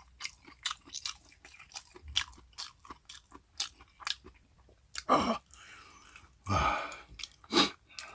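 A person chewing food close to the microphone, with many wet mouth clicks and crunches, then three louder noisy sounds near the end.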